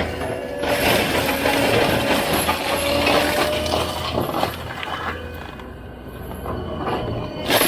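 Diesel compact track loader running with its forestry mulching head, chewing up brush, with a scatter of cracks and clinks from wood and debris. About five seconds in, the sound dulls and drops for a couple of seconds before rising again near the end.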